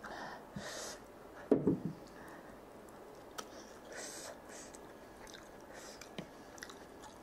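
Close-up chewing of chicken and noodles, soft and intermittent, with one louder smack about a second and a half in. Light clicks and rustles follow as wooden chopsticks pick up noodles.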